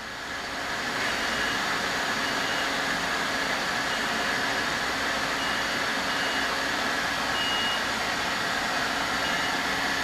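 Robinair A/C recovery and charging machine working beside the running car, a steady whirring hiss that swells over the first second and then holds, as it adds an extra half pound of R-134a to overcharge the system. Short, faint high beeps from its keypad come now and then.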